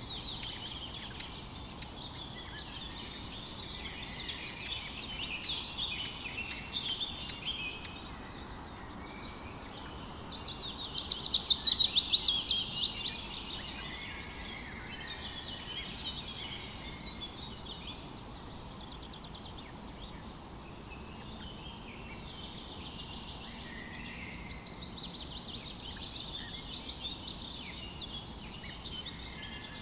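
Several songbirds singing and chirping over a steady background hiss, with a loud, rapid trill about ten seconds in that lasts a couple of seconds.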